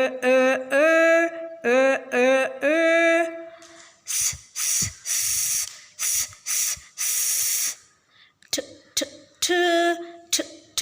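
A voice sounding out phonics letter sounds, each repeated: first about six short voiced sounds, then six hissing 'sss' sounds from about four seconds in, then short clipped consonant sounds near the end.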